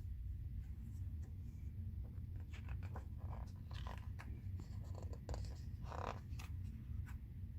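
Paper rustling and handling noise as the pages of a picture book are turned, a cluster of short scrapes and rustles over a steady low rumble.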